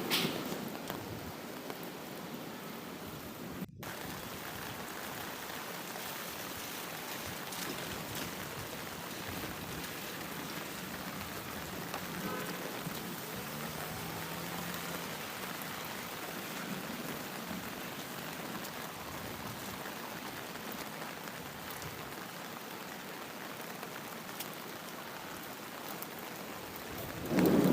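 Steady rain falling, an even hiss of drops that cuts out for an instant about four seconds in.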